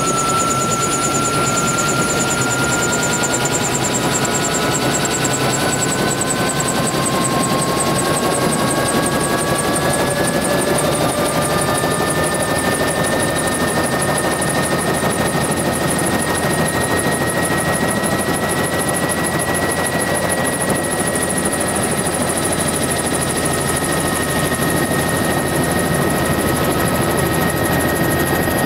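Helicopter running on the ground before take-off, heard from aboard: a loud, steady engine and rotor noise with thin whines that climb slowly in pitch.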